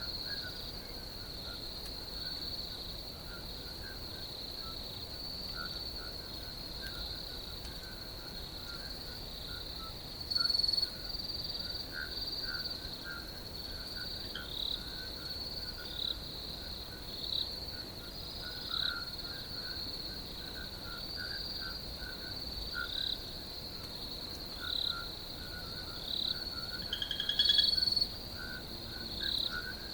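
Crickets chirping in a steady high trill, over a lower pulsing chorus of other calls. Short, louder calls stand out every couple of seconds in the second half, with a brief louder call about ten seconds in and another near the end.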